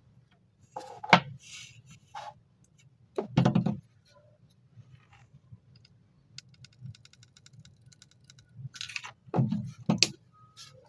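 Small hobby parts being handled on a table: a few sharp knocks and clatters as pieces are picked up and set down, and in the middle a quick, even run of light ticks lasting about two seconds.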